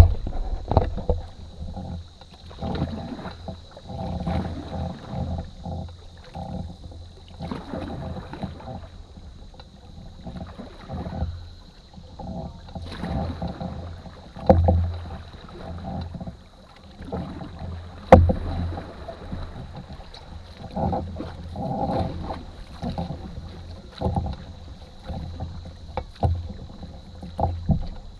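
Wooden canoe paddles dipping and pulling through river water in uneven strokes every second or two, with splashes and drips, broken by a few sharp knocks against the canoe, the loudest about halfway through.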